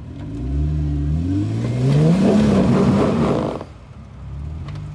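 Jeep Wrangler Rubicon's engine revving hard under throttle as it pushes the Jeep up a rock ledge, rising in pitch for about three seconds, then cutting back suddenly to idle.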